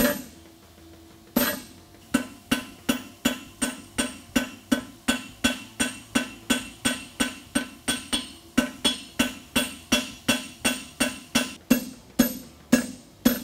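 Hand hammer striking a hot steel horseshoe on an anvil: two single blows, then from about two seconds in a steady run of about three blows a second. Each blow rings with a clear metallic tone.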